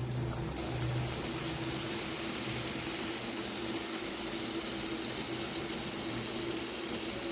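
Vadas of rice flour and mullu murungai leaf deep-frying in a pan of oil over a low flame: a steady sizzle, with a faint steady hum underneath.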